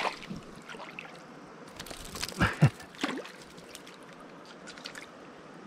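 Hand splashing in shallow creek water while grabbing a small hooked brook trout, with the loudest splashes about two and a half seconds in and a few smaller splashes near the end.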